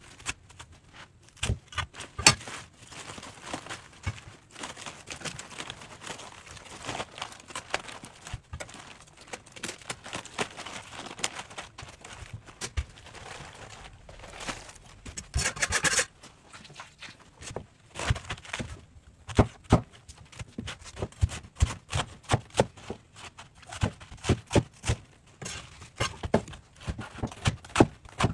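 Chinese cleaver chopping napa cabbage on a wooden chopping block: sharp knocks of the blade hitting the board, with crisp crunching and tearing of the leaves. In the last third the chops come in a steadier, quicker run.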